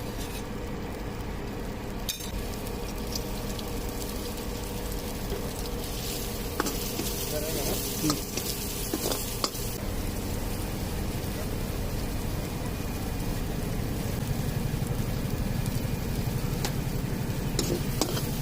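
Maggi noodles sizzling and frying in a hot pan, with a few sharp metal clinks of a spatula or ladle against the pan as they are stirred.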